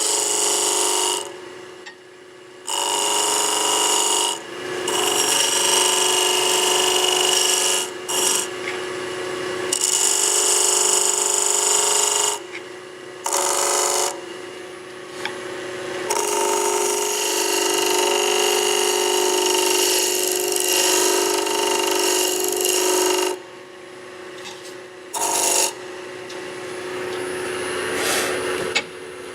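Turning chisel cutting a spindle blank of wood spinning on a lathe between centres, taking it down toward marked lines. The cutting comes in passes of several seconds and drops away abruptly each time the tool comes off the wood.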